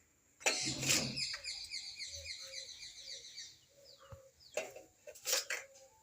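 Small birds chirping in a quick, high twittering run of many short notes for about three seconds. A loud clatter comes just before it, and a few short clatters follow near the end.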